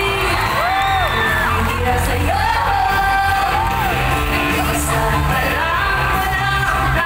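Woman singing live into a microphone over pop music through a concert sound system, a gliding, held melody over heavy bass.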